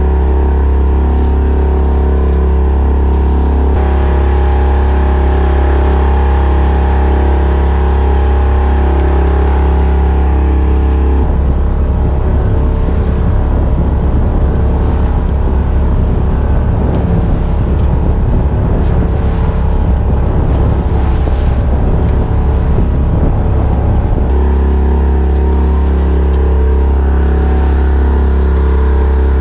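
The Folkboat's engine running steadily under power, a loud, even low drone. For a stretch in the middle it gives way to a rougher rush of wind and water splashing along the hull.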